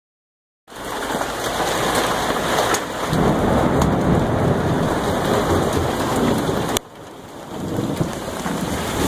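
Hail and heavy rain pelting down on a yard and roof: a dense hiss with scattered sharp ticks of stones striking, and a deep rumble underneath. It starts abruptly about a second in, and cuts off suddenly about two thirds of the way through before coming back somewhat quieter.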